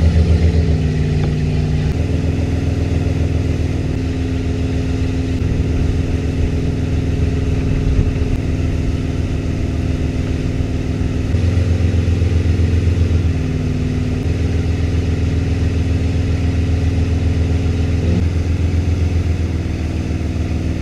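Tow boat's engine running under way, pulling a wakeboarder. Its pitch shifts a few times as the speed changes, over a steady rushing noise.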